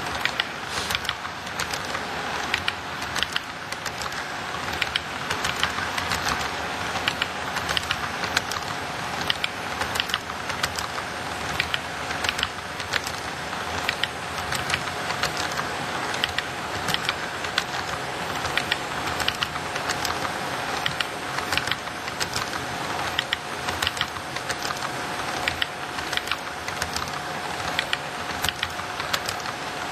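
Model railroad freight cars rolling past on the track, their wheels clicking over the rail joints a few times a second over a steady rolling noise, with a thin steady whine underneath.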